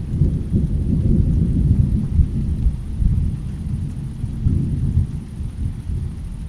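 Low rolling rumble of distant thunder in a rainstorm, strongest in the first half and then easing, with only faint rain hiss above it.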